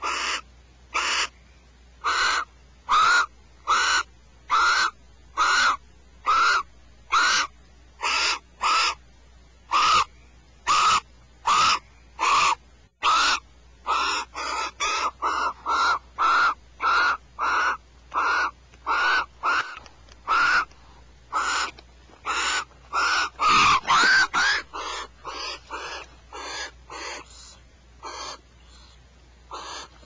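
Barn owls giving short, harsh screech calls over and over, at first about one a second, then faster and crowding together past the middle, thinning out near the end. A mated pair squabbling over a rat.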